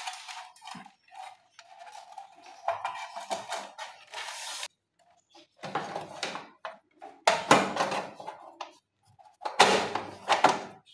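A plastic top cover being pushed and fitted onto an electric insect killer's sheet-metal housing: five separate bursts of scraping and knocking with short pauses between.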